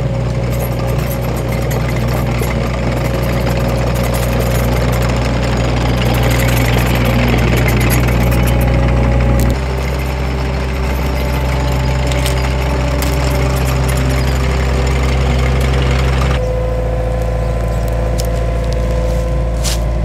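Takeuchi TL130 compact track loader's diesel engine running steadily while it travels carrying a load of lumber on its forks. The engine note shifts abruptly twice, about ten and about sixteen seconds in.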